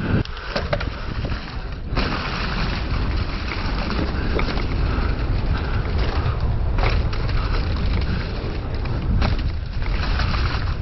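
Mountain bike riding down a leaf-covered dirt trail: a steady rumble of wind on the camera microphone over the hiss of the tyres rolling through leaves and soil, with a few sharp knocks and rattles from the bike over bumps.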